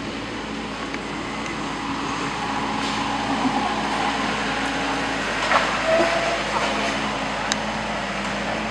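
Heavy vehicle's diesel engine running steadily at a demolition site, a low even hum with a steady rush of noise over it.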